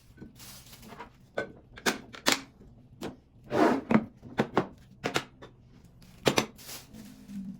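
Irregular sharp knocks and clicks of hard household items being handled and set down, with a brief rustle about three and a half seconds in.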